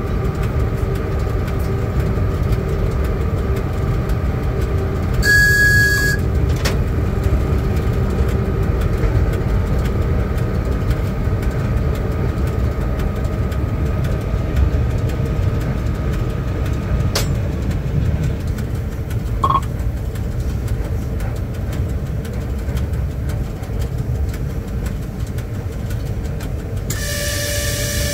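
Cab interior of a Škoda-built ChS4 electric locomotive: a steady low rumble with a constant electrical hum. It is broken by a short, high signal tone about five seconds in, and again by a longer one near the end.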